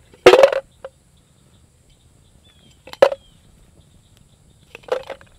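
Broken pieces of candle wax dropped into a stainless steel paint can: three short clunks, a couple of seconds apart, the first the loudest.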